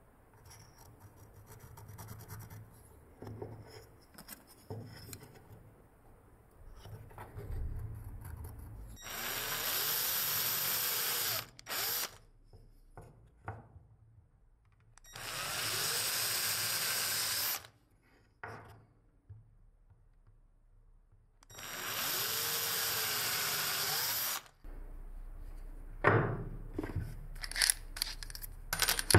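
Metabo cordless drill boring into a plywood block in three runs of a few seconds each, its motor pitch sagging and recovering as the bit bites, after faint pencil-and-ruler scratching. Near the end, clicks and knocks as the bit is changed in the drill's keyless chuck.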